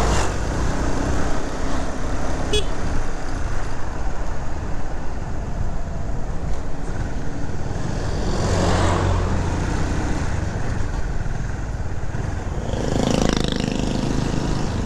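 Motorcycle riding along a road: the engine runs steadily under a constant rush of road and wind noise, with a short click a couple of seconds in and two louder swells of noise about halfway through and near the end.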